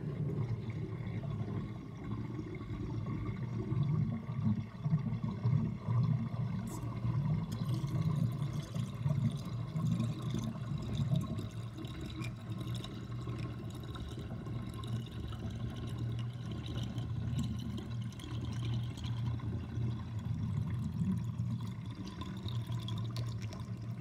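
Kitchen sink drain with a basket strainer draining water in a small whirlpool, with a loud, uneven gurgling as air is drawn down with the water.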